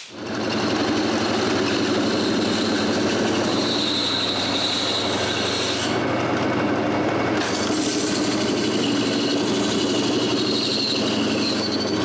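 Bandsaw running with a steady hum, its blade cutting through a walnut blank with a hiss. The hiss thins out for about a second and a half around six seconds in.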